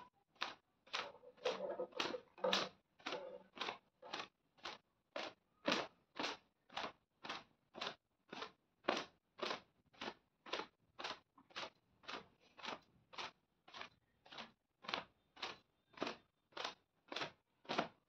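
A cloth swung against long wet hair to dry it: a swishing slap about twice a second.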